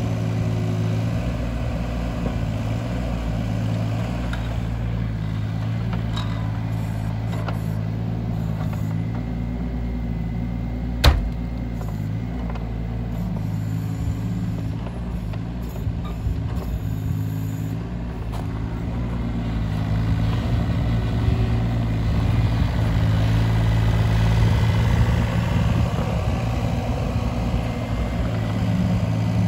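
Cat 302.7D mini excavator's diesel engine running steadily while the boom and tiltrotator are worked hydraulically, getting louder from about two-thirds of the way in. A single sharp knock about eleven seconds in.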